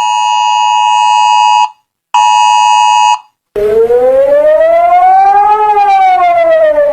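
Emergency alert alarm tones. Two bursts of a steady electronic chord around 1 kHz, the first about a second and a half long and the second about a second, are followed by a siren that slowly rises in pitch and then falls again.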